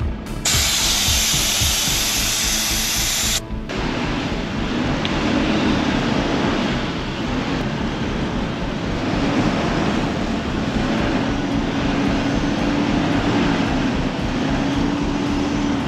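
Air hissing out of a 4WD tyre's valve for about three seconds as the tyre is let down to about 15 PSI for soft sand. It cuts off abruptly and is followed by a steady running of vehicle engines under load while a bogged ute is towed through soft sand, with background music.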